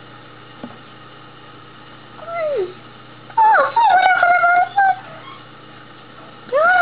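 Whining, howl-like calls, like a dog whimpering and howling: a short falling whine about two seconds in, a longer wavering howl, and a rising whine near the end. They come from a cartoon soundtrack played through a television over a steady hum.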